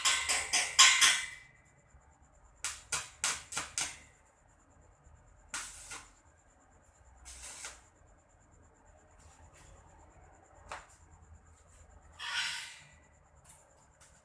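Quick rasping scrapes: a fast run of about eight strokes, a second run of five a few seconds later, then a few single scrapes spaced well apart.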